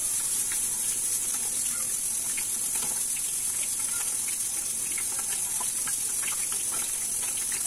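Sweet corn and dill pakoras deep-frying in hot oil: a steady sizzle with many small scattered crackles and pops.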